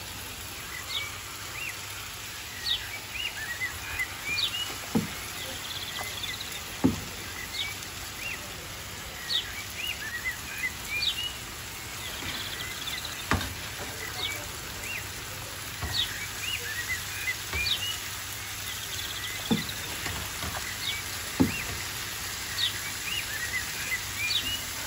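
Fried fish and an onion-tomato sauce sizzling in a frying pan, a steady hiss with small crackles throughout. A metal spatula knocks and scrapes against the pan several times as the sauce is spooned over the fish.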